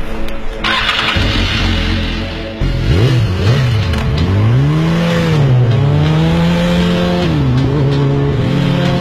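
An engine revving, its pitch rising and falling several times and holding steady in between, after a few seconds of rushing noise.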